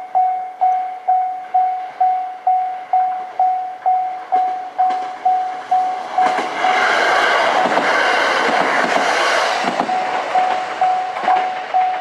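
Japanese level-crossing bell ringing at about two strokes a second. About six seconds in, a JR Kiha 127 diesel railcar passes over the crossing, and its loud rush of engine and wheel noise drowns the bell for about four seconds before the bell is heard again.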